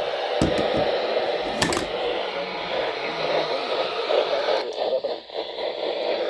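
Static hiss from a weather radio receiver's speaker, with a few faint clicks.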